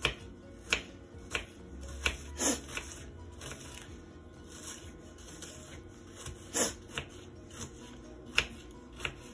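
Kitchen knife chopping an onion on a bamboo cutting board: separate knife taps on the wood at an uneven pace, about one to two a second, with the crisp cut of the onion.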